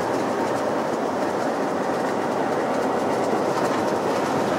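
Steady, even rushing noise that holds at one level throughout.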